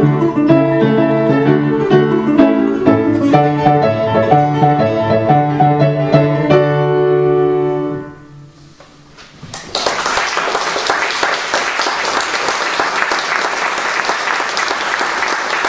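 Classical guitar and upright piano playing a duet, closing on a held final chord that dies away about eight seconds in. After a short pause, applause starts and keeps going.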